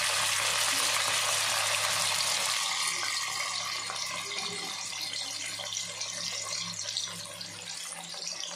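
Chopped onion and tomato sizzling and crackling in hot oil in a stainless steel pan, the hiss slowly dying down as the added vegetables cool the oil.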